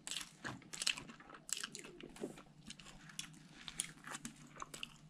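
A person chewing a mouthful of soft laskiainen bun with raspberry jam and whipped cream: quiet, irregular mouth clicks and smacks.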